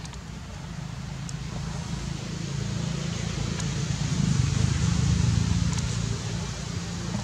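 A motor engine running with a low hum, growing louder to a peak about four to five seconds in, then easing off a little.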